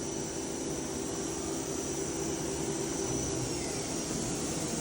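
The 8,000 RPM Cat 40 spindle of a Daewoo DMV-3016 CNC vertical machining center running steadily at about 4,000 RPM, a quiet hum with a thin high whine. The whine fades slightly about three and a half seconds in.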